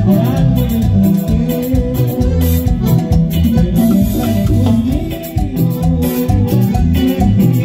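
Live band playing Latin dance music with accordion, keyboard, congas and timbales over a steady beat.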